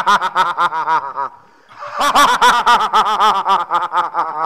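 A theatrical villain's cackling laugh, rapid ha-ha-ha syllables in two long bouts with a short break about a second and a half in.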